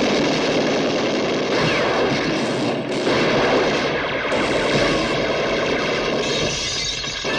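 Heavy machine gun firing continuously, mixed with other gunshots, as a film battle soundtrack.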